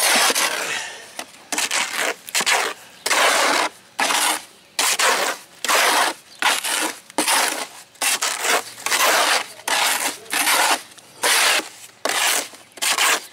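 Steel trowel scraping and turning freshly watered rapid-set mortar mix against a plastic mortar tub, in repeated strokes a little more than one a second.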